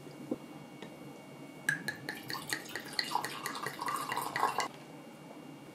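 Red wine poured from a glass bottle into a stemmed wine glass: about three seconds of rapid glugging and splashing that stops abruptly.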